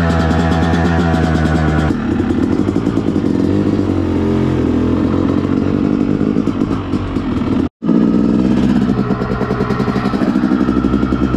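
Yamaha YZ250 two-stroke dirt bike engine running and revving as the bike rides off, its pitch rising and falling with the throttle from about two seconds in. The sound cuts out abruptly for an instant about two-thirds of the way through.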